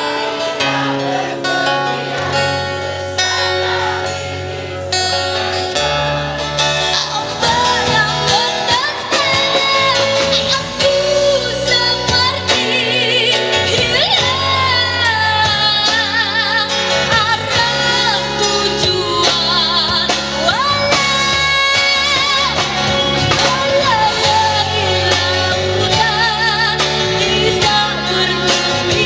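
A young female singer singing a song live over a rock band of electric guitars, bass guitar and drum kit, holding several notes with vibrato.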